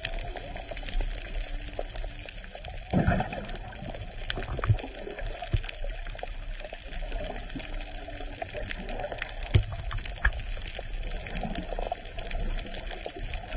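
Underwater ambience: continuous gurgling water noise with scattered sharp clicks and pops, and a louder gurgling burst about three seconds in.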